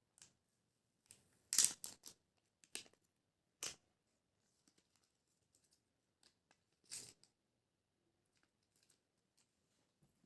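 Packaging being cut and torn open by hand: a handful of short, dry rasps and rustles, the loudest cluster about one and a half seconds in and others near three, four and seven seconds. Faint handling clicks fill the gaps.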